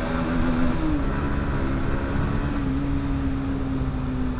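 Bajaj Pulsar NS160's single-cylinder engine on its stock exhaust, running at a steady cruise inside a road tunnel. It is a steady hum with a slight dip in pitch about a second in.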